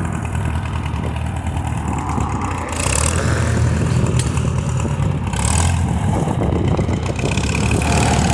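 A vehicle engine working under load as it drags a fallen pine tree off the road. The engine grows louder about three seconds in, and two short rushes of noise come over it about three and five and a half seconds in.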